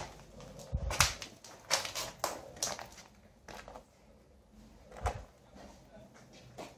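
Footsteps crunching on a floor strewn with broken plaster and rubble: a few irregular crunches and knocks in the first three seconds, then a single one about five seconds in.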